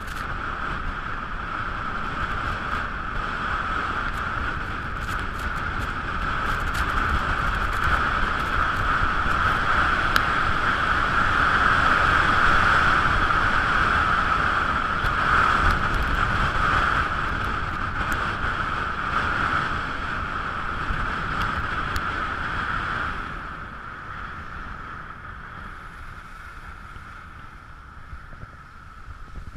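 Wind rushing over the camera's microphone, with skis sliding on packed snow, during a fast downhill ski run. The rush builds to its loudest around the middle and drops off in the last quarter as the skier slows.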